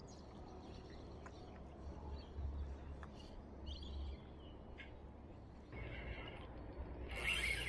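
Scattered faint bird chirps over a low, steady rumble of wind or handling on the microphone, with one louder brief animal-like call near the end.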